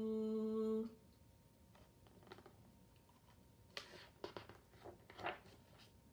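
A held sung note, one steady pitch, ends abruptly just under a second in. Soft rustles and taps of a picture book's pages being handled and flipped follow.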